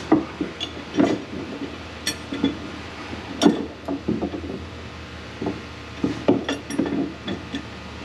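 Irregular clinks and knocks of hand tools and metal fittings being worked on the fuel tank's mounting bolts, over a steady low hum.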